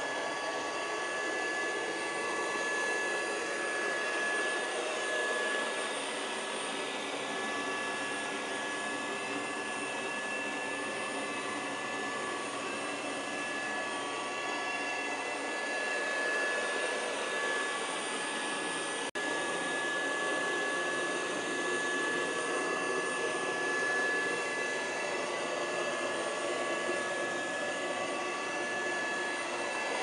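Miele Scout RX3 robot vacuum cleaner running on carpet: a steady whir with a constant high whine, briefly broken about two-thirds of the way through.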